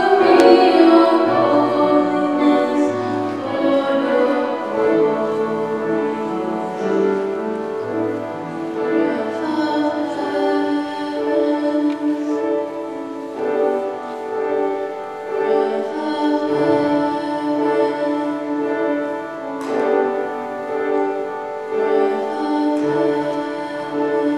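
Choir singing slow, long-held chords with piano accompaniment.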